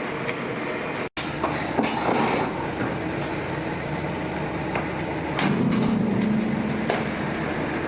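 QT4-15 automatic concrete block machine running: steady mechanical clatter with several metal clanks and sharp knocks, and a hum for about a second and a half past the middle.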